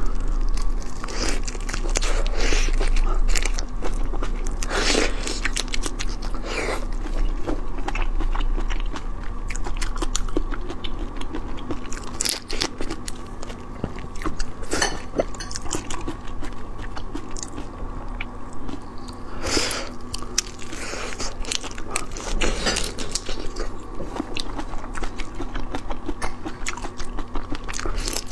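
Close-miked eating of whole marinated raw shrimp: biting and chewing through the shells in irregular crunches and crackles, with several louder bites spread through.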